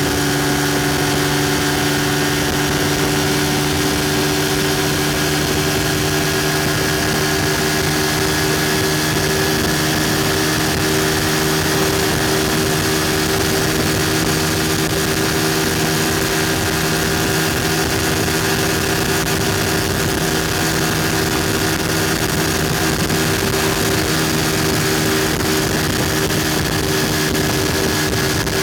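Yamaha FZ150i's 150 cc single-cylinder engine running steadily near 10,000 rpm at about 130 km/h, its pitch almost constant, under a steady rush of wind noise.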